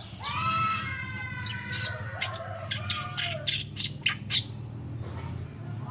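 Oriental reed warbler singing its harsh, chattering song. Rough croaking notes come in the first second or so, then a quick run of sharp, short notes about halfway through, over a steady low hum.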